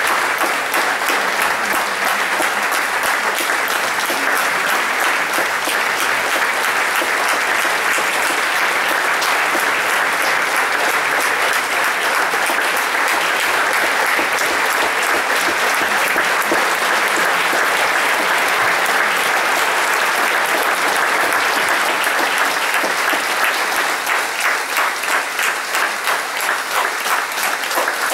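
Theatre audience applauding steadily at a curtain call; about 24 seconds in, the clapping falls into a regular rhythm.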